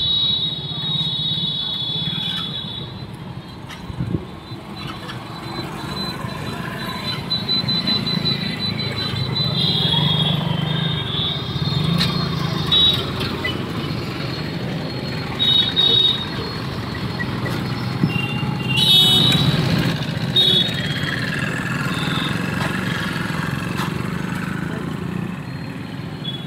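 Street traffic at a busy road junction: motorcycle and auto-rickshaw engines running and passing, with short high-pitched squealing tones cutting in and out several times, and faint voices in the background.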